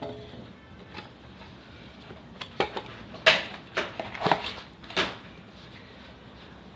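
Dishes and food containers being handled: a run of sharp knocks and clinks in the middle, the loudest about three seconds in.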